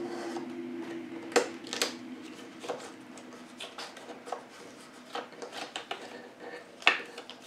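X-Acto craft knife blade scraping and cutting through the edge of watercolor paper along a cradled wood panel: a string of short scratchy strokes and clicks, the sharpest about a second and a half and two seconds in and again near the end.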